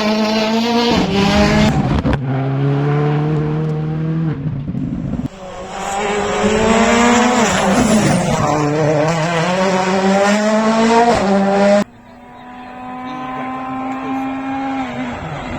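Rally car engines at hard throttle, each climbing in pitch and dropping back at the gear changes. The sound cuts abruptly from one car to the next a few times.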